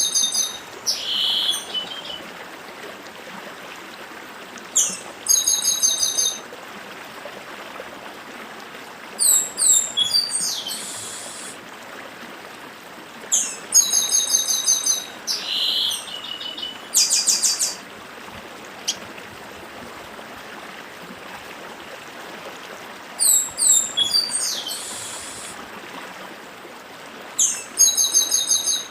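Chestnut-capped blackbird (papa-arroz) singing its 'dedim' song: short phrases of quick, high repeated notes every few seconds, over the steady rush of a stream.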